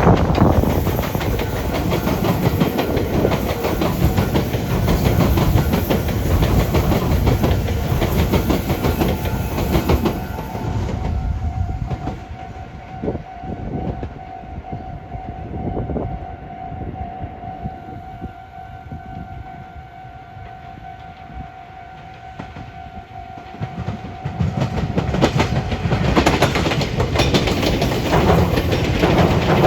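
Electric train running over the junction's points, its wheels rumbling and clattering over the rail joints. About ten seconds in the noise drops away, leaving a steady whine and a few single wheel clacks, and from about twenty-five seconds in the rumble and clatter come back loud.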